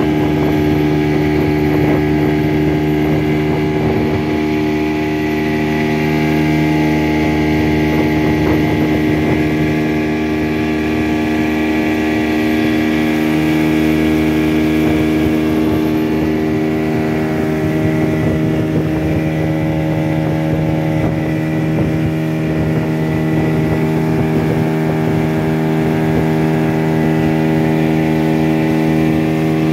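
Motorboat engine running steadily at a constant speed, one unchanging drone.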